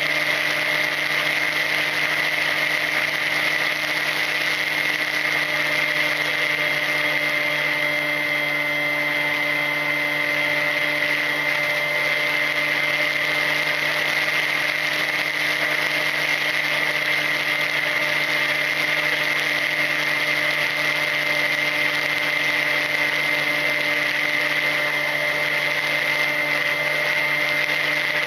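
Ranger EX FPV plane's electric motor and propeller running steadily in cruise flight, heard from the onboard camera: a constant high whine with a lower hum underneath, over a hiss of rushing air.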